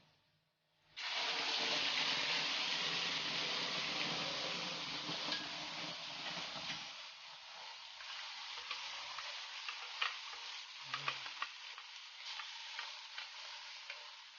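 Blended spice paste going into hot oil and fenugreek seeds in a wok: a loud sizzle starts suddenly about a second in and settles to a quieter frying hiss about halfway through. A spatula stirs the paste, with scattered clicks and scrapes against the wok.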